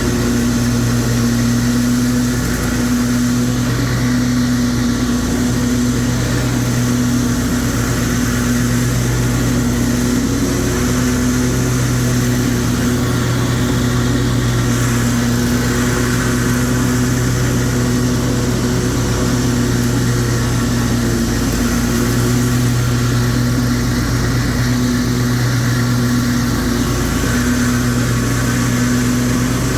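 Exmark Lazer Z 52-inch commercial zero-turn mower running steadily while mowing, its engine holding an even pitch with the cutting blades engaged.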